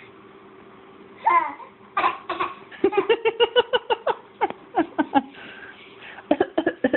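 A young child vocalising: a couple of high, falling squeals, then a quick run of short, high-pitched voiced bursts at about five a second, giggle-like, with another short cluster near the end.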